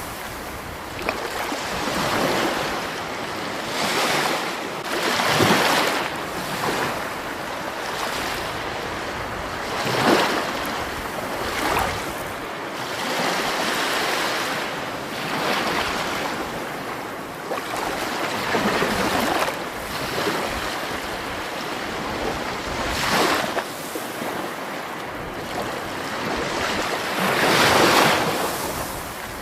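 Water rushing steadily, swelling louder every few seconds.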